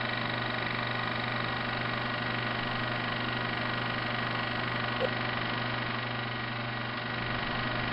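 Steady motor hum and whir, with a small click about five seconds in.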